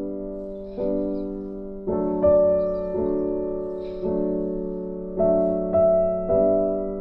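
Slow, gentle piano background music: soft notes and chords struck about once a second, each left to fade before the next.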